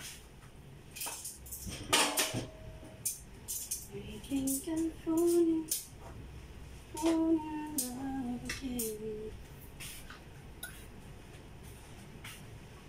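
Scattered clicks and clinks of kitchen utensils and dishes being handled, with a woman singing a few short phrases twice in between.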